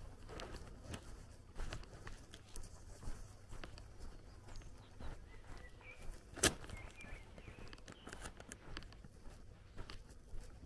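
Footsteps walking on a grassy path, with a few faint bird chirps and one sharp snap or click about six and a half seconds in.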